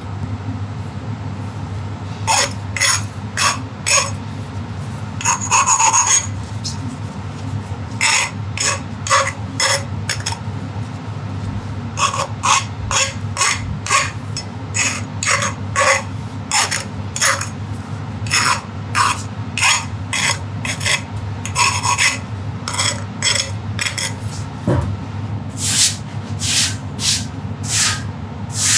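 Hand filing on steel frame tubing: short rasping strokes in runs, about two a second, over a steady low hum.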